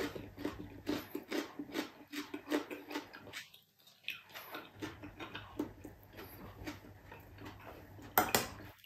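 Close-up chewing with moist mouth clicks a few times a second, pausing briefly partway through. Near the end a metal spoon clinks against the glass serving dish, the loudest sound.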